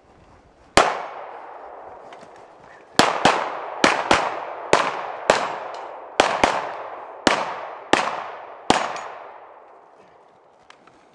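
A string of about a dozen gunshots from a 3-gun competitor's firearms, each sharp crack trailing off in a long echo. One shot comes about a second in; after a pause, eleven more follow over about six seconds at uneven spacing, some in quick pairs.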